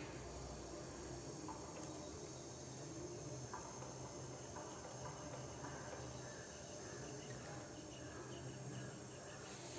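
Faint crickets chirping steadily, with a few soft plastic clicks from a Rubik's cube being turned.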